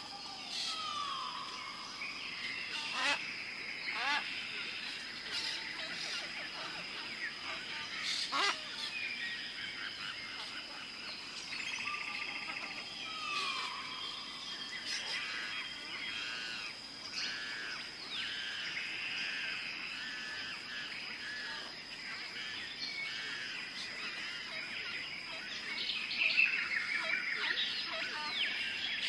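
Many birds chirping and calling over one another in quick, overlapping phrases, with a steady high-pitched tone underneath.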